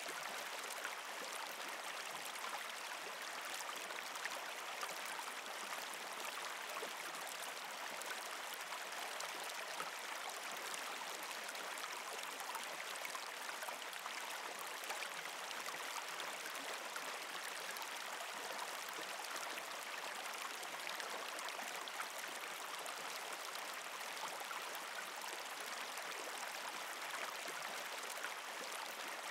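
Steady sound of flowing water, like a small stream, an even hiss with fine faint ticks and no change in level.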